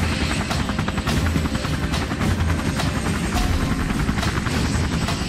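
Helicopter rotor blades chopping steadily in a fast, even rhythm, with the low drone of the engine underneath.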